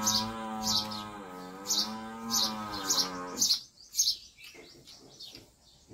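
Cattle lowing in one long drawn-out call that stops about three and a half seconds in, while a small bird chirps quickly, about two chirps a second. Faint clicks follow once the lowing stops.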